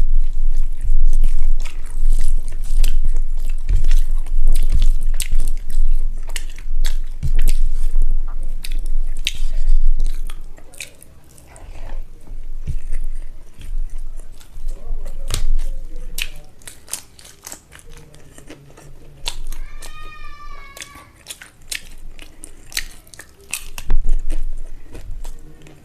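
Close-miked eating of rice and egg curry: chewing, wet mouth smacks and sharp clicks, heavier in the first ten seconds and softer after. About twenty seconds in comes one short, high, squeaky call lasting just over a second.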